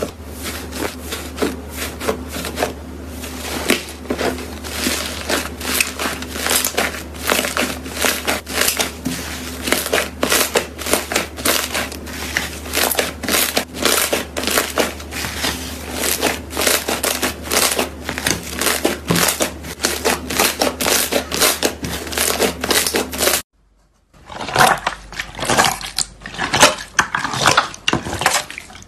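Slime pressed and kneaded by hand, giving a dense run of small crackles and pops over a steady low hum. About 23 seconds in it cuts off suddenly, then a sparser crackling starts again.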